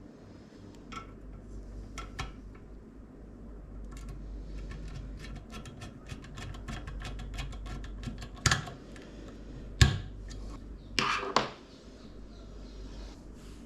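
Small hard parts being handled during a PC build: scattered light clicks, then a quick run of ticks, followed by a few louder clacks about two-thirds of the way through.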